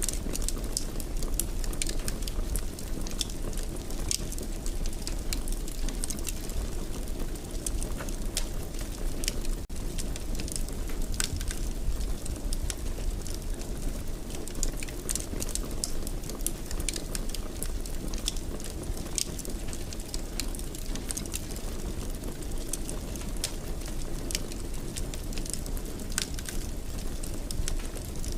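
Wood fire burning in a fireplace: a steady low rumble of flames with frequent small, irregular crackles and pops.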